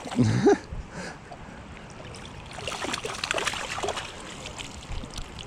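Creek water running and trickling, with a denser patch of splashing about two and a half seconds in, and a brief voice-like sound at the very start.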